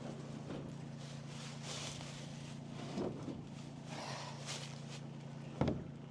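Kubota B2301 compact tractor's three-cylinder diesel engine idling steadily. A knock comes about three seconds in and a louder one about five and a half seconds in.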